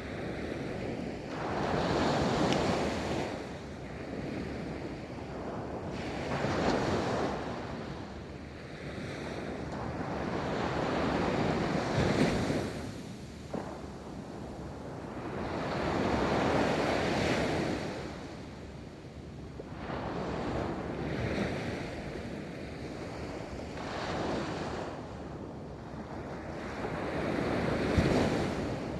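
Ocean waves rolling in and breaking on a beach, each wash swelling and falling away every four to five seconds.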